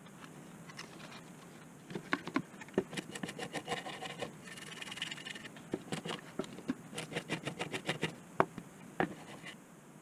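Toothbrush bristles scrubbing a washing-machine control circuit board in rapid short strokes, a dense scratchy brushing from about two seconds in until near the end, with a few sharper ticks.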